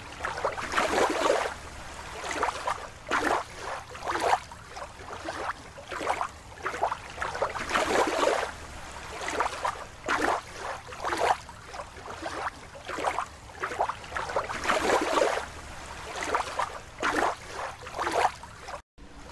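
Water sloshing and splashing in a plastic bowl as a toy is swished through it by hand, in irregular surges about once a second.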